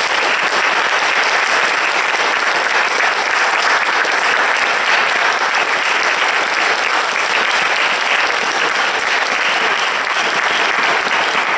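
Loud, steady applause from an audience, many hands clapping.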